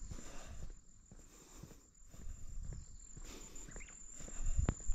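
A steady high-pitched insect drone over irregular soft thumps and rustles, with a sharper knock about four and a half seconds in.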